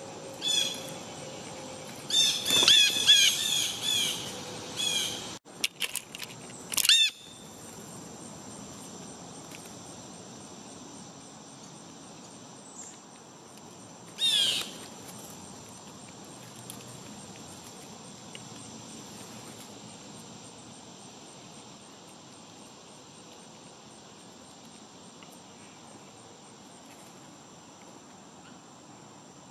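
Songbirds calling near the feeder: loud clusters of quick, sharply sliding chirps in the first seven seconds and one more burst around 14 seconds in, over a steady chorus of crickets.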